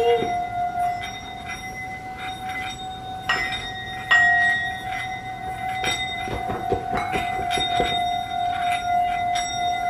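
Several Tibetan singing bowls ringing. One steady tone holds throughout, and other bowls are struck a few times, about three, four, six and seven seconds in, adding higher ringing tones.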